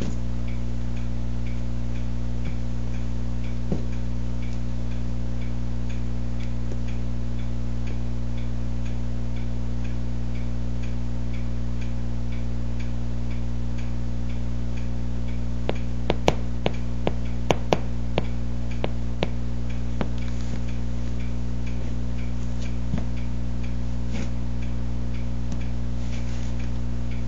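Steady low hum with faint regular ticking about twice a second. A short run of sharp knocks comes about two-thirds of the way through.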